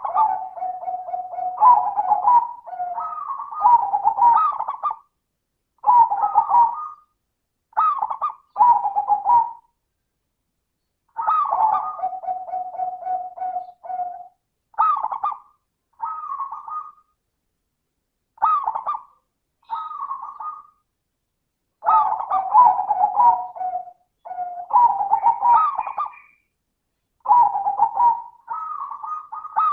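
Zebra dove (perkutut) cooing its song in short repeated phrases of about one to three seconds, with brief silences between them. Each phrase opens on a higher note, and some end in a long, low held coo.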